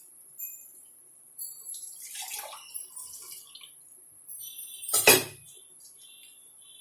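Water poured from a cup into a heated cooking pan, splashing in two pours. The second, about five seconds in, is short and the loudest.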